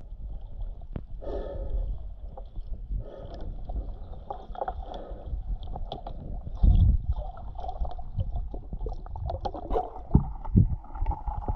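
Muffled underwater sound through a GoPro's waterproof housing: water swishing and gurgling as a diver swims, with irregular low thumps, the loudest about seven seconds in.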